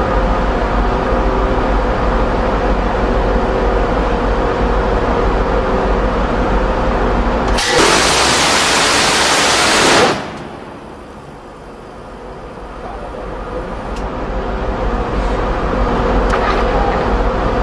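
A Phalanx CIWS's 20 mm six-barrel Gatling gun fires one continuous burst of about two and a half seconds, starting about eight seconds in, as a single loud unbroken roar that cuts off sharply. A steady mechanical hum runs under it.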